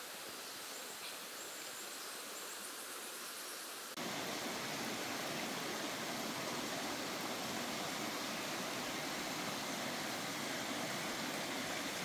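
Steady rushing of a rocky mountain stream. About four seconds in, it jumps suddenly louder and fuller. Before the jump it is a quieter, thin ambience with faint high insect chirps.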